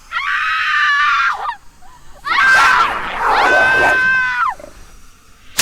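A woman screaming twice, high-pitched: a first scream of about a second and a half, then a longer one that starts rough and then holds a steady pitch.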